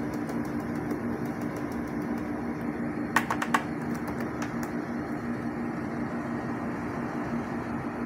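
Kolin window-type air conditioner running: a steady rush of air from its fan with a constant two-note motor hum underneath. A quick run of about four sharp clicks comes about three seconds in.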